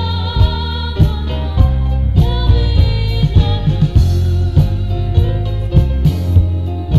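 Blues song with a female lead vocal holding long, wavering notes over a backing band with a steady drum beat.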